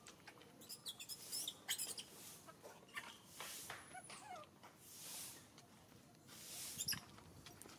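Faint high-pitched squeaks and whimpers from macaques, with scattered small clicks and scrapes.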